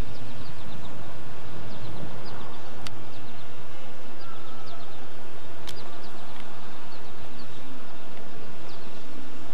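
Small birds chirping again and again over a loud, steady outdoor background noise, with two sharp clicks, one about three seconds in and one just under six.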